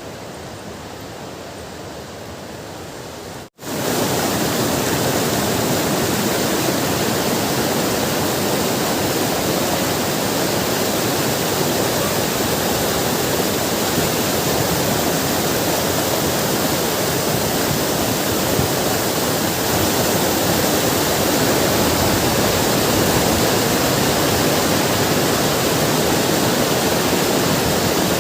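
Fast-flowing river water rushing in a steady noisy roar. About three and a half seconds in it cuts out briefly, then comes back much louder and closer.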